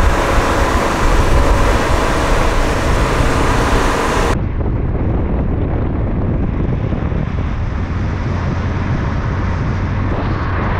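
Steady rush of wind on the microphone with car road noise underneath, from a camera held out of a moving car's window. About four seconds in the sound turns duller as its high end drops away.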